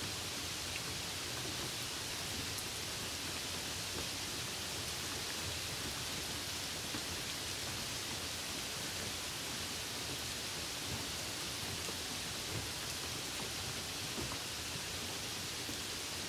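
Steady rain: an even hiss with a few faint drop ticks here and there.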